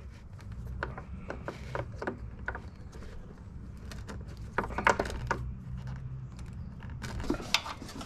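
Scattered light clicks and rattles of plastic parts and wiring being handled as a new H4 headlight bulb is fitted into the headlight housing, over a steady low hum.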